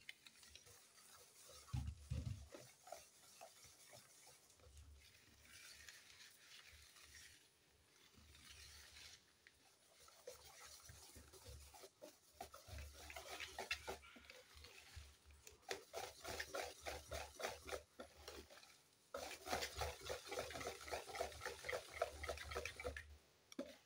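Wire whisk beating flour into a thick batter in a bowl: faint, quick rhythmic strokes, coming in runs with short pauses.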